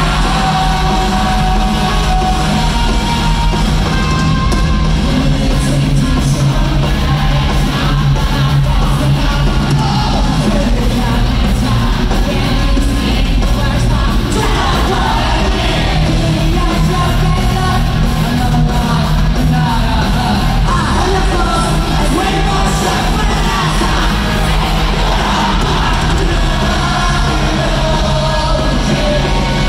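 Rock band playing live in an arena, with electric guitars, drums and a singer singing and shouting the lead vocal, heard from the audience with the hall's echo.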